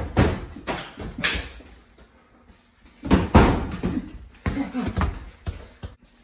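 Soccer ball being kicked and bouncing on a hard concrete floor as two players scramble for it: a string of sharp thuds with scuffling footsteps, the loudest about three seconds in.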